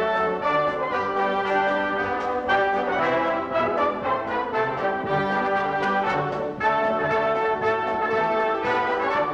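Orchestral closing music led by brass, playing held chords that change every couple of seconds.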